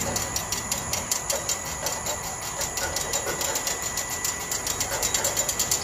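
Homemade RC crane's winch motor and gear train hoisting a model excavator of about 150 kg off the ground. It makes a steady high whine with rapid, even clicking, about nine clicks a second.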